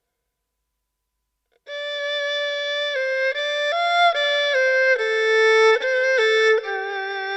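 Solo erhu, bowed and unaccompanied, coming in after about a second and a half of near silence with a slow melody of held notes stepping from pitch to pitch.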